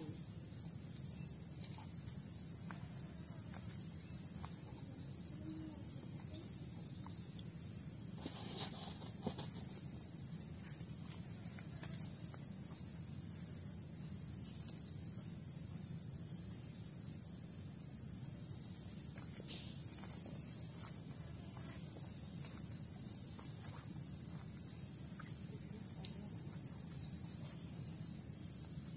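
Steady high-pitched insect drone, unbroken throughout, with a few faint knocks and rustles about nine seconds in.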